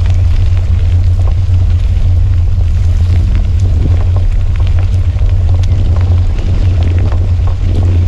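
Wind buffeting the microphone of a handlebar-mounted camera as a bicycle rolls along a dirt trail: a loud, steady low rumble, with scattered light clicks and rattles from the bike over the rough ground.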